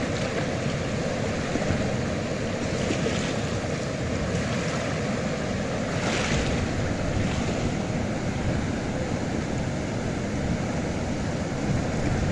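Steady rush of muddy water pouring out of a concrete sluice outlet and flowing fast through a shallow channel, briefly louder about halfway through.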